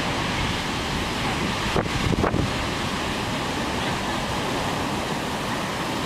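Storm surf breaking and washing up a beach, mixed with strong wind blowing across the microphone. A couple of louder wind buffets hit the mic about two seconds in.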